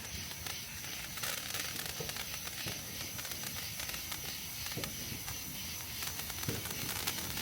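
A burning firework giving off a steady hiss with rapid, irregular crackles.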